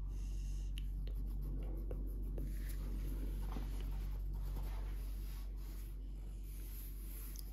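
Felt-tip pen scribbling on paper: quick, irregular back-and-forth colouring strokes with small ticks of the tip, over a steady low hum.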